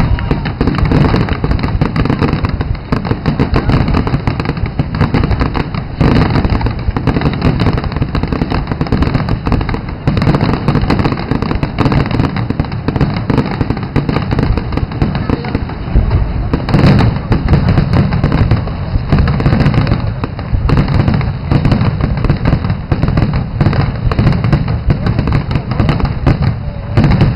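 Fireworks display: aerial shells bursting in a rapid, near-continuous barrage of loud bangs.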